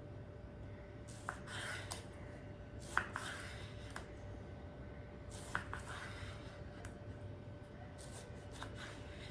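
Kitchen work: about ten irregular sharp knocks, with rubbing and scraping sounds between them, over a faint steady hum.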